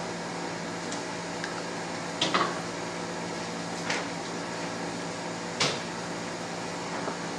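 Three brief knocks and clatters of kitchen utensils or containers being handled, spaced a second or two apart, the last one the loudest, over a steady electrical hum.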